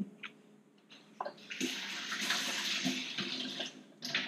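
Water running for about two seconds as a steady hiss, with a few light knocks before it and a short clunk near the end.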